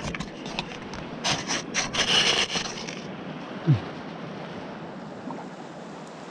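Rustling and scraping from handling close to the microphone, starting about a second in and lasting about two seconds, over a steady background hiss.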